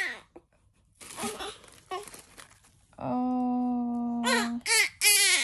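Gift packaging rustling and tearing. Then a newborn baby crying: one long steady wail, followed by short rising-and-falling cries near the end.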